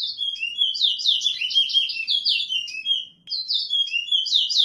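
Towa-towa seed finch singing: a fast, loud phrase of quick falling chirped whistles that breaks off briefly about three seconds in, then starts over.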